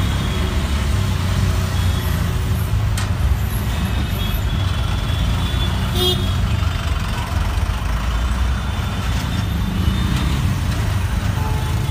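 Auto rickshaw's small engine running and its cabin rattling as it drives through city traffic, heard from inside the open cabin, with short high horn toots from the surrounding traffic and a brief sharp sound about halfway through.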